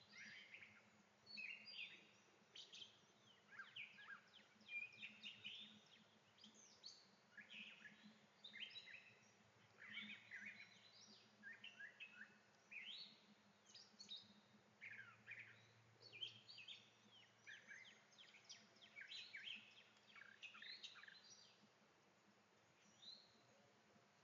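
Faint chorus of small birds chirping and twittering in quick, overlapping calls, thinning out near the end.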